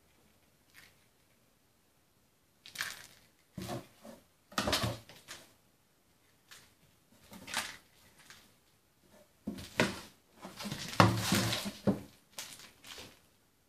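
A kitten playing on a laminate floor, scampering, pouncing and knocking into a cardboard box and a small toy: flurries of scrabbling and knocking with short quiet gaps, the loudest about eleven seconds in.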